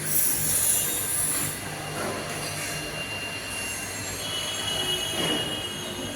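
Air compressor running with a steady low hum. A loud hiss of air comes in the first second and a half, and a thin high whistle joins over the last two seconds.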